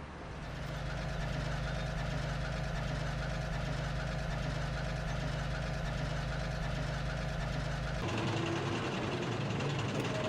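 Heavy diesel engine running at a steady idle, fading in over the first second. About eight seconds in it cuts abruptly to a different, hissier engine sound.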